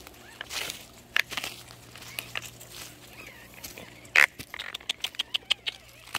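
Footsteps on forest-floor leaf litter and twigs: irregular crackles and snaps, thickest near the end, with one sharp louder snap about four seconds in.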